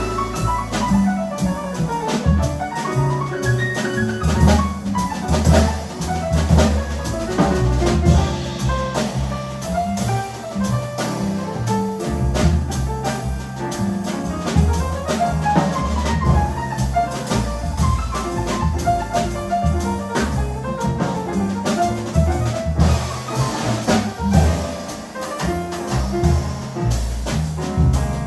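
Acoustic jazz quartet playing: drum kit with many cymbal and drum strikes over low double bass notes and busy piano lines.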